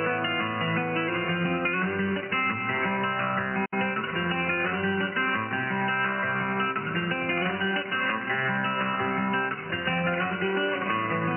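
Guitar music with strumming, heard over a shortwave radio in upper sideband, thin and missing its highs. The audio drops out for an instant about four seconds in.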